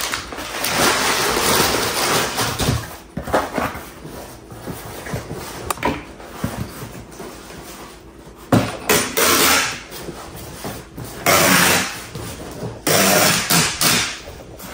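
Paper rustling at first, then strips of packing tape run off a handheld tape gun to seal a cardboard box: three long, loud pulls in the second half.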